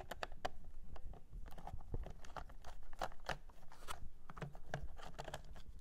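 Irregular small clicks and scrapes of a T9 Torx driver turning out the screws that hold an aircore gauge motor in a plastic instrument cluster.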